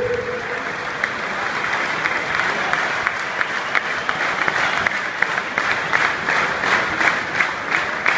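Stadium crowd of football supporters applauding, with individual claps standing out more sharply in the second half.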